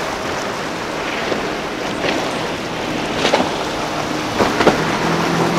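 Outboard-powered center-console boats running past at planing speed, their engine noise blended with the hiss of spray, wake and surf, and wind on the microphone. There are a few sharp splashes in the second half.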